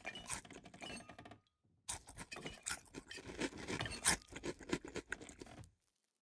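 A dense flurry of faint crackles, clicks and rustles in two runs, with a short break about one and a half seconds in. It stops abruptly near the end.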